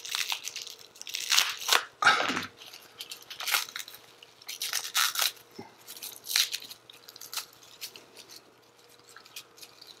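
Packaging being cut and torn open with a knife: irregular crinkling, tearing and rustling bursts, with a short vocal sound about two seconds in.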